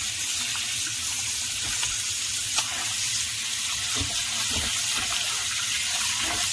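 Tap water running steadily into a plastic basin while hands scrub and rub a flour-coated octopus in the water, with small splashes and a brief tick about two and a half seconds in.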